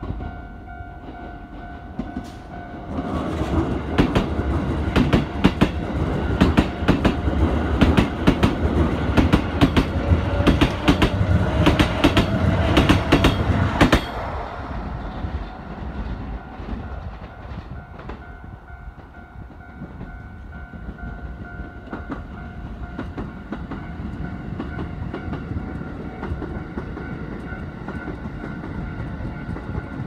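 Keikyu 1000-series electric train passing close by: wheels clattering over rail joints, with a faint rising motor whine, dropping off suddenly about 14 seconds in. A level-crossing warning bell rings steadily before the train arrives and again after it has gone by.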